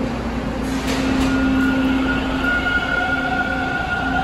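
TTC T1 subway train pulling into the station on the far track, a steady rumbling hum with whines coming in as it slows, the higher one about a second in and another near the end.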